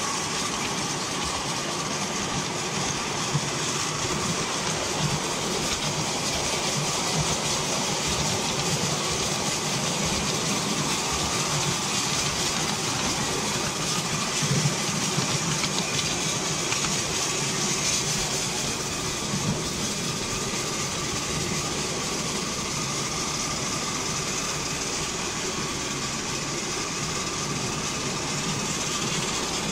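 Miniature steam locomotive hauling a riding car, heard from aboard the train: a steady running noise of the engine and wheels on the rails, with a few sharp clicks.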